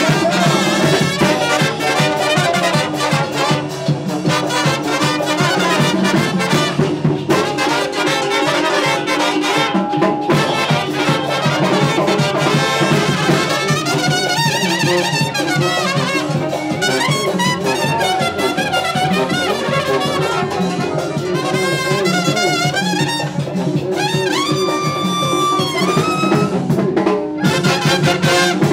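Mexican banda (tambora) brass music, trumpets and trombones playing over a steady beat. A held high note slides up and holds about three-quarters of the way through.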